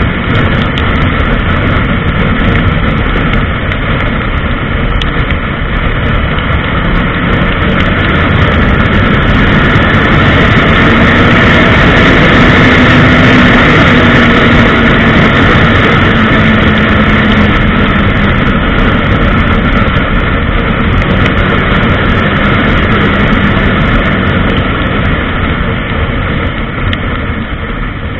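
Honda CBR1000RR's inline-four engine and rushing wind at high speed, from an onboard camera; the sound grows loudest about halfway through as speed reaches about 175 km/h, then eases off toward the end.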